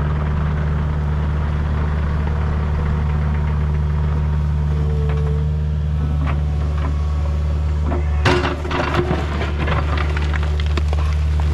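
Engine running steadily at a constant speed, with a burst of clattering knocks about eight seconds in.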